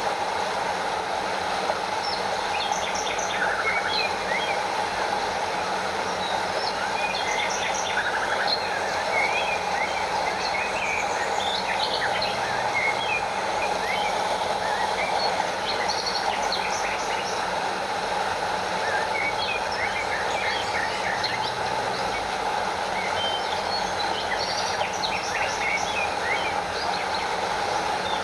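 Steady rush of a stream with water spilling over a small waterfall, overlaid with frequent short, high chirps scattered throughout.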